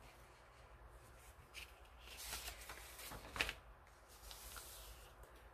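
A page of a thin paperback booklet being turned by hand: a soft papery rustle and swish, loudest about three and a half seconds in.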